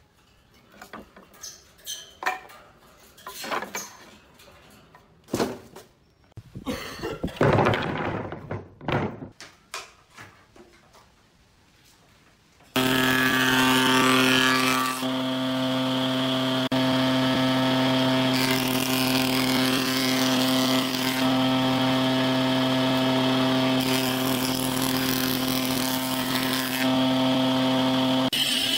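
Pallet-wood boards knocking and clattering as they are picked out of a pile. About halfway through, a jointer planer starts abruptly and runs with a steady hum, its cutting noise swelling and easing every few seconds as a board is fed over the cutter head.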